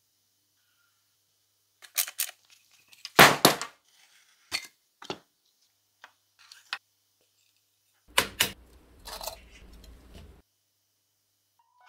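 Scattered clicks and knocks of metal parts and a hand tool as a rusty Keyang PHD-38 electric hammer drill is taken apart. The loudest knock comes about three seconds in, and a longer rubbing, scraping stretch follows around eight to ten seconds.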